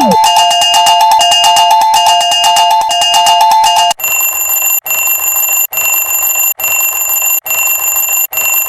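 Railroad crossing warning bell sound effects. A fast alternating two-pitch ding runs for about four seconds. It then switches to a higher, brighter ring that repeats a little faster than once a second.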